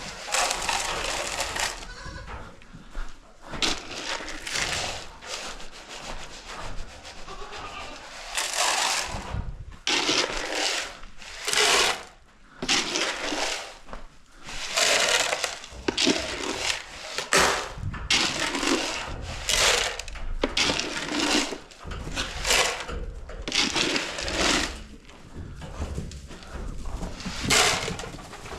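Dry hay or straw rustling and crunching in a long series of bursts, roughly one every second or two, as it is handled or walked through.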